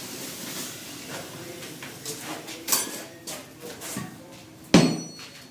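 Hand hammer striking a hot iron gun barrel on an anvil during forge welding. A few lighter knocks are followed near the end by one heavy blow that rings. A soft hiss fades out over the first two seconds.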